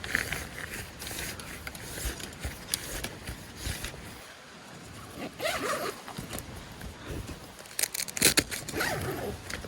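Nylon tent fabric and gear rustling and scraping as they are handled, in irregular bouts, with a cluster of sharp crinkles about eight seconds in.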